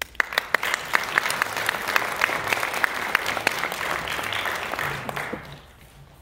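A small audience applauding, the individual claps standing out, dying away about five and a half seconds in.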